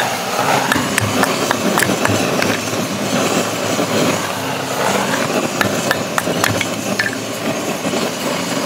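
Handheld gas-cartridge torch burner hissing steadily as it blasts flame into kindling, with many sharp knocks and taps of a knife splitting kindling on a wooden chopping round.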